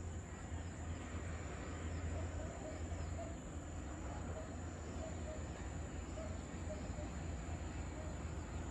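Outdoor evening ambience: a steady high insect drone over a constant low rumble, with faint short chirps repeating every half second or so.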